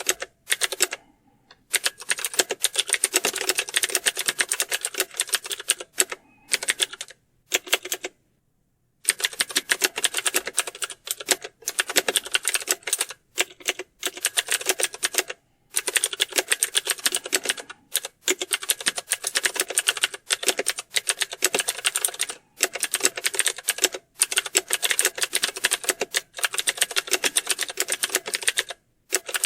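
Fast typing on keyboards: dense clattering key clicks in long runs, broken every few seconds by short pauses. The longest pause, about a second and a half, comes about eight seconds in.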